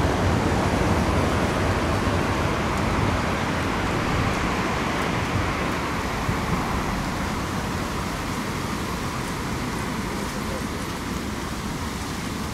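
Siemens Avanto tram-train rolling away along its track, its running noise slowly fading into the general hum of street traffic.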